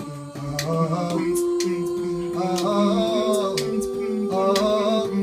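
A cappella vocal group singing a house song in harmony, holding long 'oh' chords over a low sung bass line, with sharp clicks marking the beat.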